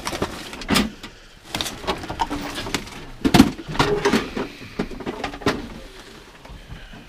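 Tools and junk being handled and shifted onto a pile: a run of irregular knocks, clanks and scrapes, the loudest about three and a half seconds in.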